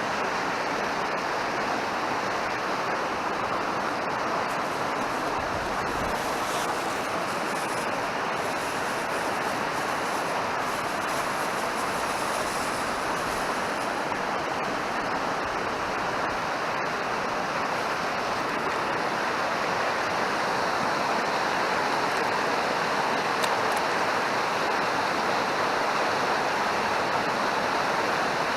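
Fast mountain river rushing steadily over rocks, an even, unbroken roar of water.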